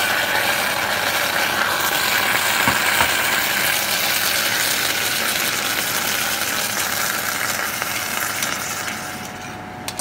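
Water poured into a hot saucepan of dry-roasted coriander seeds, sizzling and hissing hard as it flashes to steam; the hiss eases after about nine seconds. A few clicks of a metal spoon against the pan come near the end.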